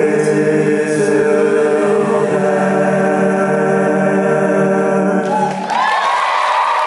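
Young men's a cappella choir holding the song's final chord, many voices sustained together, cutting off about five and a half seconds in. Applause breaks out right after, near the end.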